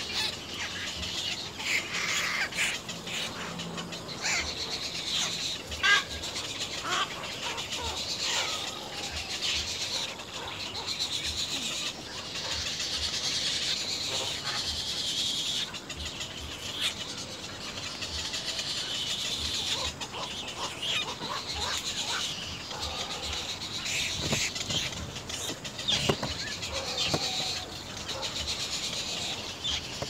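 Little egret chicks calling over and over as the adult feeds them at the nest, with short clicks and rustles, over a steady high hiss.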